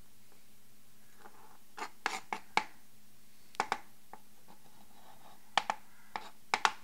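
Ceramic kitchen knife chopping garlic cloves on a cutting board: sharp taps of the blade on the board in small quick groups of two to five, about a dozen in all.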